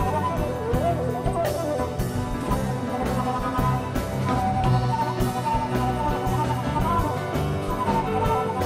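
Live ensemble music: a concert flute carries a wavering melody over violins and other strings, with a steady rhythmic pulse.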